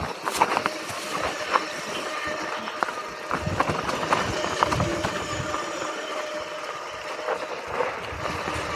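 Mountain bike, a Specialized Kenevo e-bike, riding fast down a dirt trail: tyres rolling over dirt and roots with frequent irregular rattles and knocks from the bike over bumps, under a steady whirring hum from the bike.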